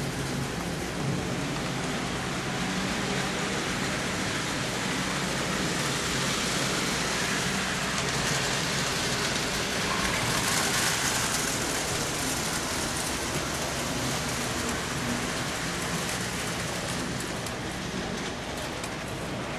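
Model trains running on metal layout track: a steady rolling rumble with a low motor hum. It grows a little louder and brighter around ten seconds in, as cars pass close by.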